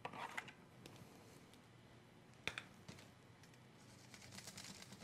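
Faint plastic clicks as washable markers are picked over on a tabletop, one sharper click about halfway through, then from about four seconds in a faint scratchy rubbing of a felt-tip marker drawn over aluminium foil.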